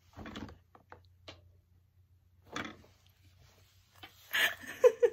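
A young woman's stifled, breathy laughter in a few short bursts, breaking into a louder voiced laugh near the end.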